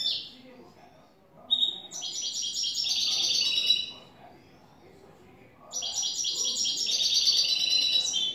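Caged European goldfinch singing: a brief call at the start, then two long phrases of rapid high notes, one from about a second and a half in and the other from the middle to the end.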